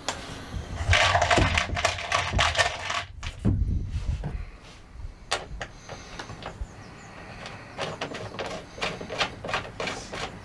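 Hands working small metal fixings into the holes of a van's steel body rail. First comes about two seconds of rustling, then a run of light metallic clicks and taps.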